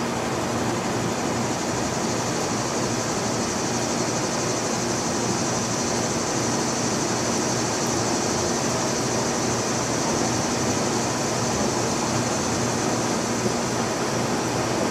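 Steady outdoor background noise: an even hiss with a faint low hum under it, unchanging throughout.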